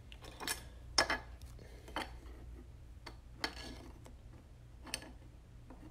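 Faint, irregular light clicks and taps, about half a dozen, from trading cards being handled on a table, over a low steady hum.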